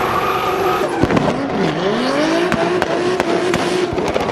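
Turbocharged drift car engine revving hard with tyres squealing. The revs drop sharply about a second in and climb back. Sharp exhaust pops and bangs from the anti-lag system are scattered throughout.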